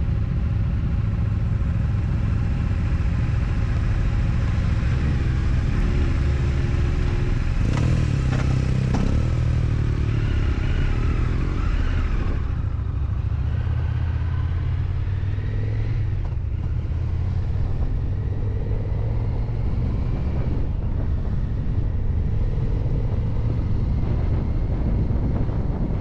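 Motorcycle engines pulling away and riding on the road, heard from a bike-mounted camera; the engine note rises and falls as the rider goes through the gears in the first half.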